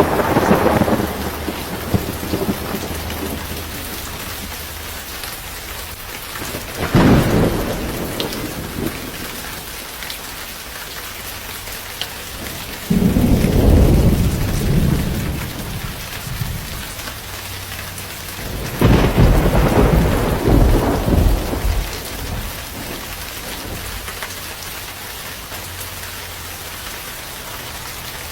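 Steady rain falling, with thunder rumbling three times, each roll swelling up and fading over a few seconds.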